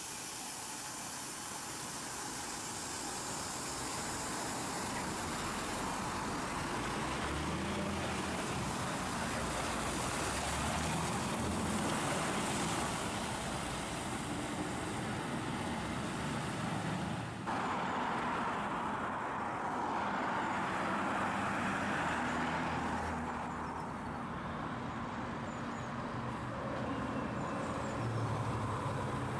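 Heavy lorry diesel engines with tyre and road noise: a loaded DAF flatbed crane lorry pulls away, its engine note shifting up and down. After an abrupt change about halfway through, a Scania articulated lorry comes closer, its low engine note strongest near the end.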